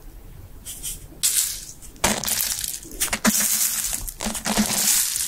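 Close-up crunching, grinding noise made by a hand working right at the microphone, in three bursts after about a second of quiet, the last and longest lasting about two seconds.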